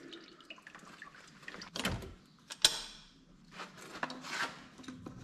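Tools and parts being handled while an engine's intake side is dismantled: a few separate knocks and clunks, the sharpest a little over halfway through, with a short ring after it.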